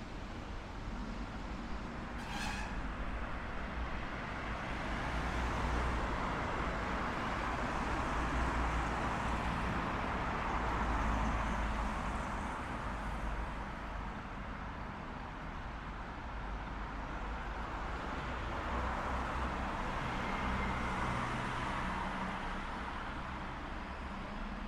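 City street traffic: cars passing, their tyre and engine noise swelling up twice and fading between.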